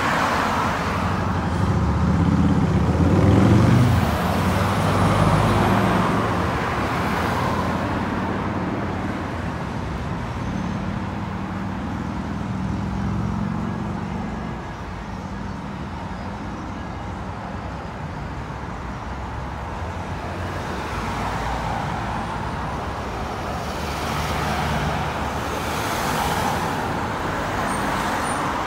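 Road traffic: cars driving past close by, engine rumble and tyre noise swelling and fading as each one goes by. The loudest passes come in the first six seconds; the traffic eases in the middle and swells again near the end.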